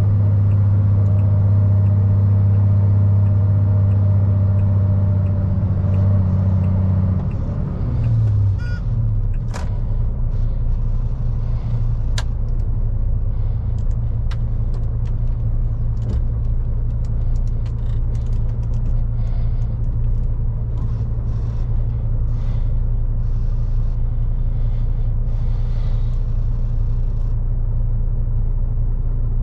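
Diesel engine of a 2001 MAN lorry droning steadily under way. About seven seconds in its note breaks and drops, then settles into a lower, rougher drone with a few sharp clicks.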